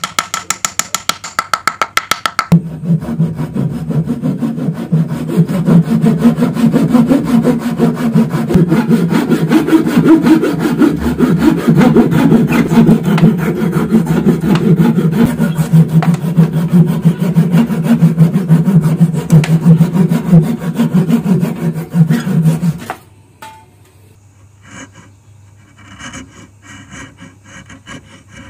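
Handsaw cutting protruding wooden dowel pegs flush with the face of a board, in continuous back-and-forth strokes for about twenty seconds, after a couple of seconds of fast, even ticking. The sawing stops abruptly, and a chisel follows, paring the dowel stubs with quieter, scattered scrapes.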